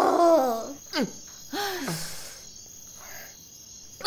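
A person's voice letting out short wordless cries with falling pitch, three of them in the first two seconds and a faint one about three seconds in, over a steady background of crickets chirring.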